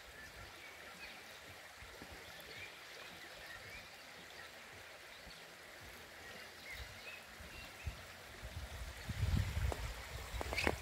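Shallow stream running over stones, a steady rush of water. Near the end, low rumbling thumps come in, with a sharp click just before the end.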